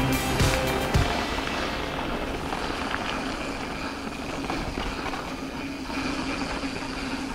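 Mountain bike rolling along a dirt forest trail: steady tyre noise with a few small knocks from bumps.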